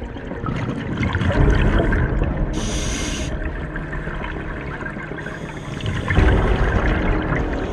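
Scuba diver breathing underwater, heard through the camera housing: exhaled bubbles rumble in two surges, about a second in and again about six seconds in.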